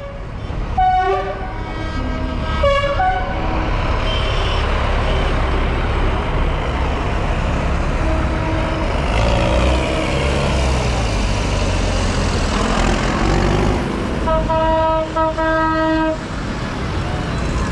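Tractor engines running with a steady low rumble while horns toot: a short toot about a second in, another near three seconds, and a run of quick toots in the last few seconds.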